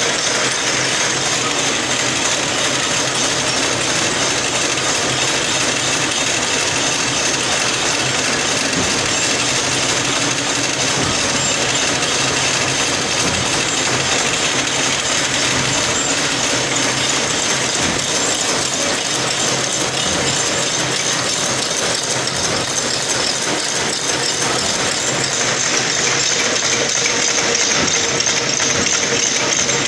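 Automatic barbed wire making machine running steadily at speed, a dense, rapid mechanical clatter.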